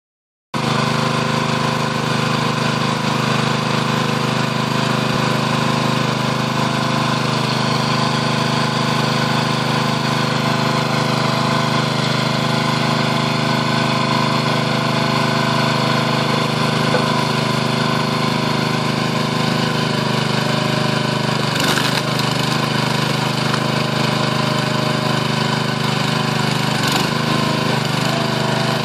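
Small gas engine of a Powerhorse 22-ton hydraulic log splitter running steadily at a constant speed. Two sharp knocks come near the end, about five seconds apart.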